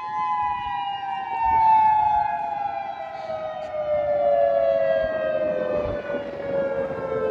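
Outdoor civil defense siren sounding the tsunami warning: a loud, sustained two-note wail whose pitch slides slowly and steadily downward throughout.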